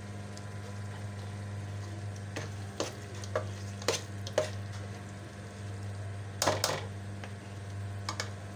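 Metal spoon stirring thick minced-meat-and-pea curry in a steel pot, with scattered sharp clinks and scrapes against the pot; the loudest, a quick pair, come about six and a half seconds in. A steady low hum runs underneath.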